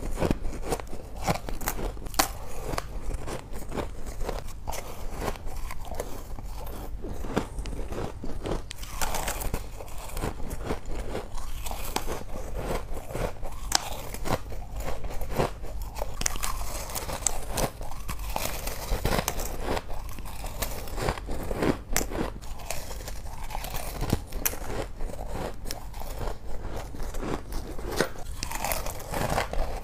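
Soft freezer frost ice being bitten and chewed, a dense run of crisp crunches and crackles, bite after bite.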